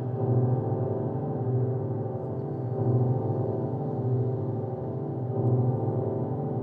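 A steady ringing drone of several low tones sounding together, swelling and ebbing in a slow pulse about once every second and a quarter, like a gong left to sound.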